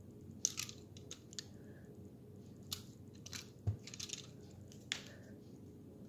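Fidget cube's buttons and switches clicking in short irregular bursts as it is worked and waved about, about eight sharp clicks and brief clatters.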